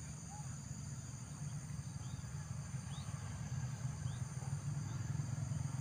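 Steady, high-pitched insect chorus over a low, steady rumble, with a few faint short chirps.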